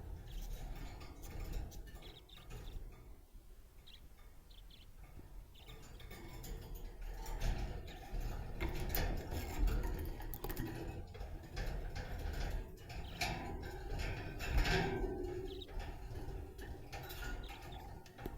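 Budgies chirping and chattering in a busy, scratchy stream of short clicks and chirps, louder and busier from about halfway through.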